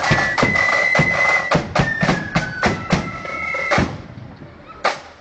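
Marching flute band playing a tune, high flutes carrying the melody over a steady beat of drums. The tune ends about four seconds in, and one drum beat follows near the end.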